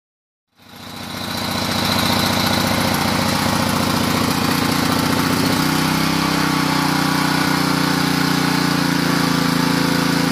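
The single-cylinder four-stroke petrol engine of a China Honda WP30 water pump set running steadily, freshly rebuilt after seizing. It comes in about half a second in, and its pitch rises a little about six seconds in.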